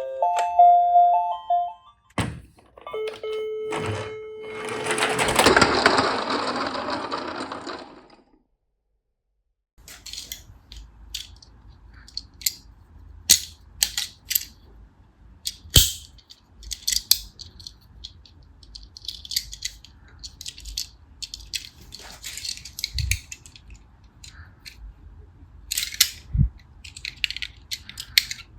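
A short music jingle ends, then a few clicks and a steady tone lead into a swelling rush of noise that stops about eight seconds in. After a brief silence, plastic toy cars clatter and click irregularly over a low rumble, with several louder knocks.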